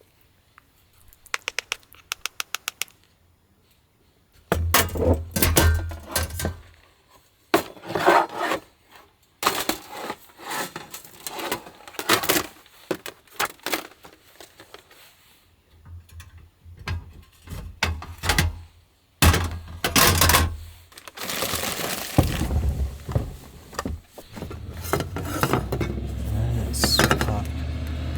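Scraping and clattering of cooking utensils against pots and dishes, with a quick run of about ten sharp clicks near the start.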